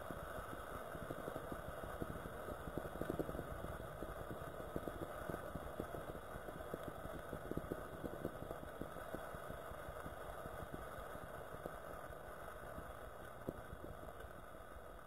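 Tandoori chai frothing and sizzling in a heated clay kulhad: a dense crackle of popping bubbles that slowly dies down.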